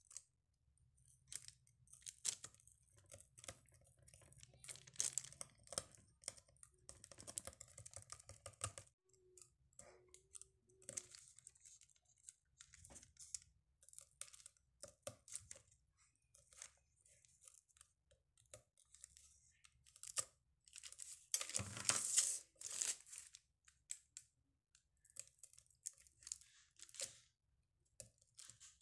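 Faint scratching and small crunches of a needle picking at a thin, brittle disc of dalgona honeycomb candy as bits of it chip away. About 21 seconds in comes a louder stretch of crunching lasting a couple of seconds.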